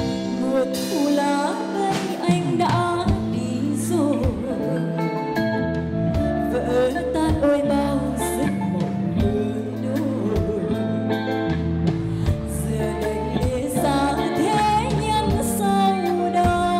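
A woman singing a Vietnamese pop ballad live into a microphone, with her voice wavering in vibrato on held notes, backed by a live band with keyboard, bass and drums.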